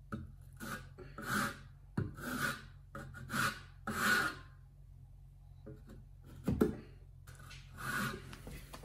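Notched steel trowel scraping tile mastic across a backsplash wall in a series of short strokes, each about half a second long. A single sharp thump about two-thirds through is the loudest sound.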